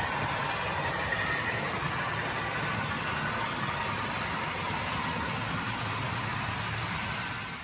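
Class 47 diesel engine sound played through the small speaker of a sound-fitted model locomotive's Loksound V5 decoder, running steadily, mixed with the rolling rumble of the model coaches' wheels on the track.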